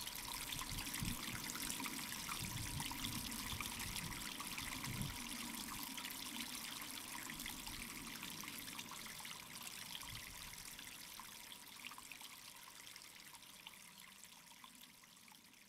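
Trickling, flowing water: a steady water ambience that fades gradually over the second half.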